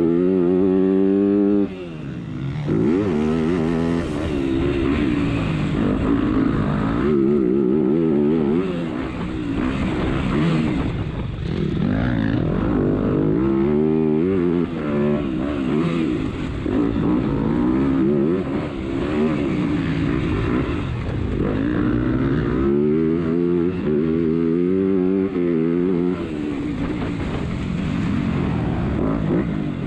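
Motocross bike engine heard from on board, revving up and dropping off again and again as the rider opens and closes the throttle through the track, with a sudden drop in level about two seconds in.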